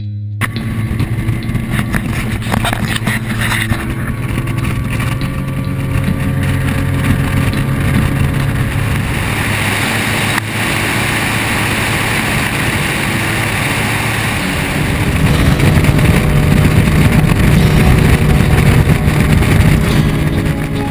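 Outboard motor of a bass boat running at planing speed, with water rushing along the hull. It gets louder about two-thirds of the way through.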